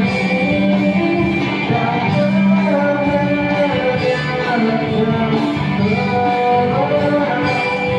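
A song with a singing voice over guitar-led accompaniment.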